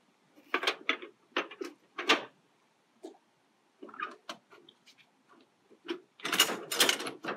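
Handling noise as a petrol sample tin and pipette are packed away and the airtight sample container is closed: a run of sharp clicks, knocks and scrapes, busier and louder near the end.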